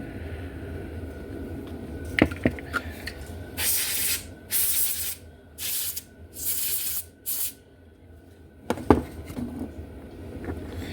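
Five short bursts from an aerosol spray can, hissing at the slot car's rear axle, hubs and pinion to clean off gunk. Sharp handling knocks come before and after the bursts.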